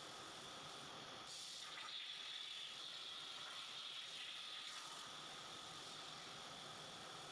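CNC plasma cutter's torch hissing as it cuts through steel plate, starting about a second in and stopping just before five seconds. A fainter steady hiss runs underneath.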